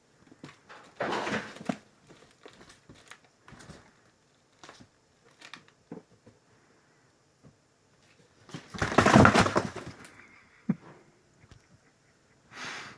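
Kitten at play: irregular rustling, scuffling and small clicks, with two louder rustling bursts, one about a second in and a longer one around nine seconds in.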